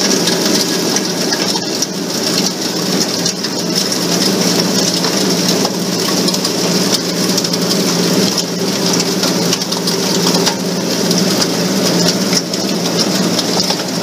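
A wet shaker table running: a steady rush of wash water over the deck, with a steady machinery hum underneath.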